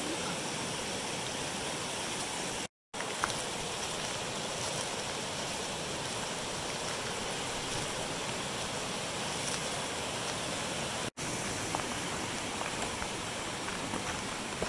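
Small creek rushing steadily over rocks and little cascades, an even hiss of running water. It cuts out to silence for an instant twice, once near the start and once about two-thirds of the way through.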